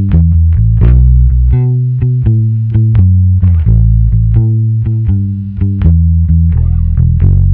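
Magna PB electric bass, a budget P-style bass with a basswood body, plucked with the fingers: a continuous bass line of several notes a second, deep and full.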